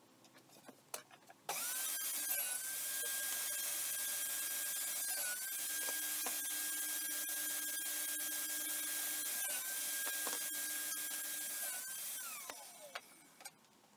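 Table saw switched on and spinning up to speed, its pitch dipping briefly several times as the blade cuts strips of old recycled cypress pushed through on a crosscut sled. Near the end it is switched off and winds down.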